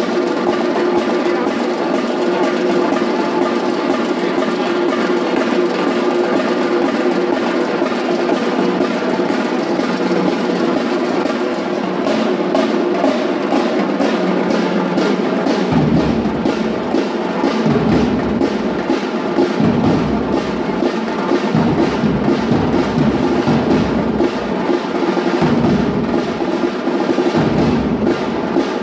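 Batucada samba percussion ensemble playing a dense, fast drum groove. Deep bass drums come in about halfway through.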